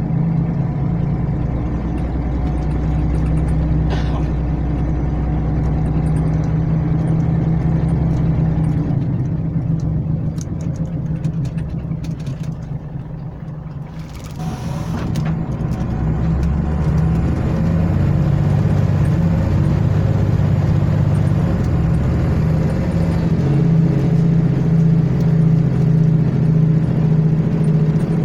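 Scania L94UB city bus engine and ZF automatic gearbox heard from inside the rear of the bus while driving. The engine eases off partway through and there is a short hiss of air. The engine then picks up again as the bus accelerates, with a thin high whine for several seconds.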